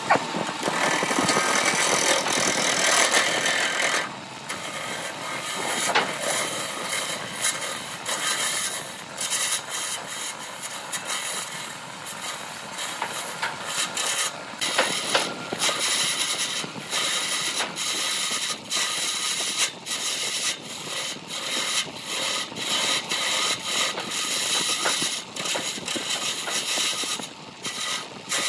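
A turning tool cutting a wood-and-blue-resin blank spinning on a wood lathe: a noisy scraping cut, broken by many brief gaps as the tool comes off and goes back onto the work, loudest in the first few seconds.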